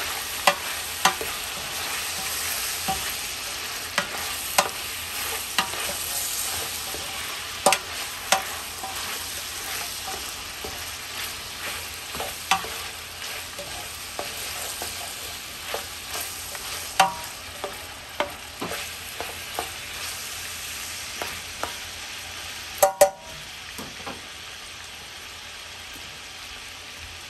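Pork and smoked sausage sizzling as they brown in hot oil in a pot, stirred with a utensil that knocks against the pot now and then. Two loud knocks come near the end, after which the sizzle is quieter.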